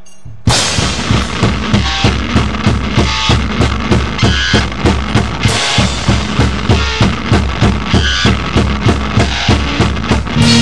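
Rock drum kit playing a steady beat, bass drum and snare at about three hits a second with cymbal crashes, starting suddenly about half a second in after a brief lull, as part of a heavy rock band recording.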